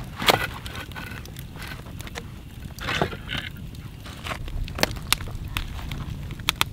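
Wood fire crackling with scattered sharp pops over a low steady rumble of flames. Two louder knocks and scrapes, near the start and about three seconds in, as the fire is tended.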